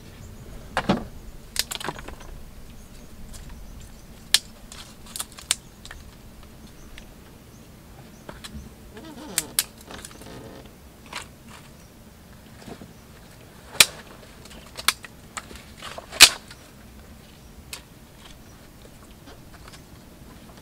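Knife blade cutting into a wooden stick being whittled: irregular sharp clicks and knocks, about a dozen, with the loudest about two-thirds of the way through.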